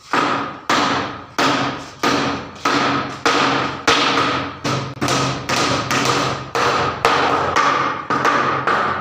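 Steady hammering: about fourteen even blows, one every two-thirds of a second, each with a short ringing decay.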